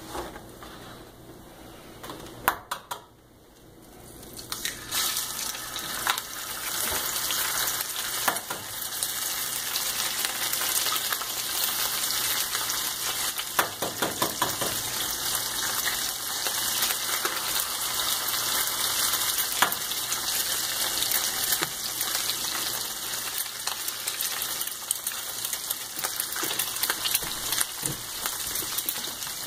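Eggs frying in a cast-iron skillet: a few sharp knocks, then a steady sizzle with crackling pops that sets in about four seconds in.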